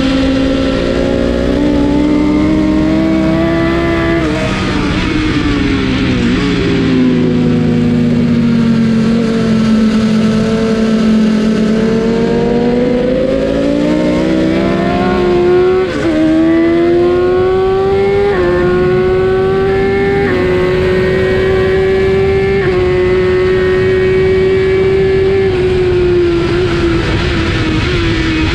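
BMW S1000 RR's inline-four engine at racing speed, its revs climbing and falling through the gears, with brief drops in pitch at each gear change.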